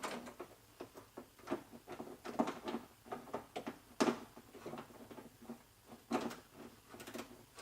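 Socket wrench tightening the door handle's mounting nut inside a car door: scattered light clicks and metallic taps at an uneven pace.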